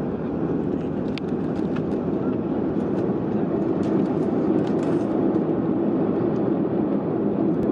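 Steady jet airliner cabin noise, an even low rush from the engines and airflow, with a few faint clicks in the first half.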